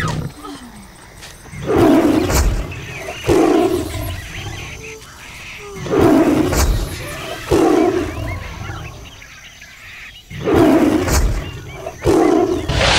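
A lion roaring, six loud roars in three pairs with a few seconds of quiet between the pairs, played as a recorded sound effect over the theatre sound system.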